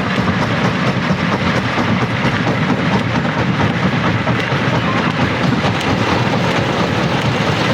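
Rock crusher running, with stones clattering and grinding through it: a steady, dense rattle of many small knocks over a constant rumble.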